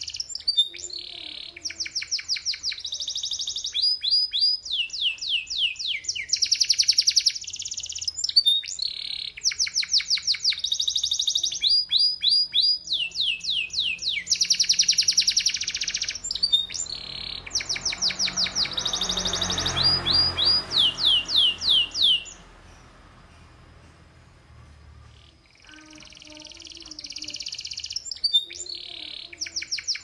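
Domestic canary singing a long run of fast trills, each a quick series of high downward-sweeping notes, with buzzy rolled phrases between. The song breaks off about 22 seconds in and starts again a few seconds before the end.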